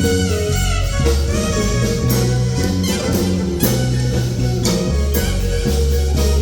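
Band music with plucked guitar over a steady bass line and drum kit, playing without a break.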